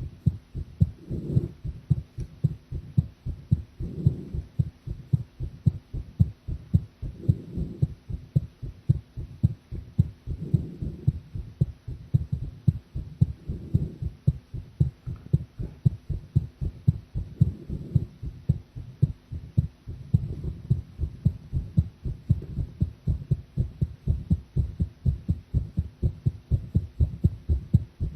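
A woman's heartbeat picked up against the chest: a steady train of short, low thumps, with a softer swell rising over them every few seconds.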